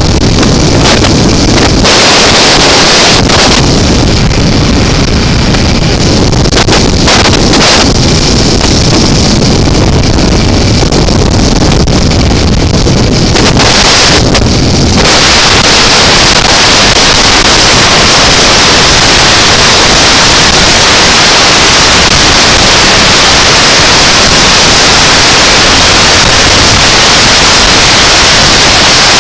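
Wind noise on the microphone from a 2005 BMW F650CS motorcycle at road speed, with the engine's drone and tyre noise underneath. About halfway through, the sound changes to a steady, even hiss.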